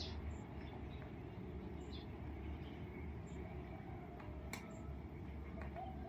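Birds giving short, high chirps every second or so over a steady low rumble, with one sharp click about four and a half seconds in.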